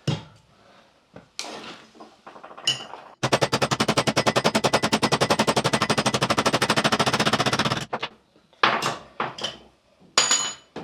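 A power tool hammering rapidly and evenly, about ten blows a second, for about four and a half seconds starting some three seconds in. A few separate metallic knocks and clanks of parts being handled come before and after it.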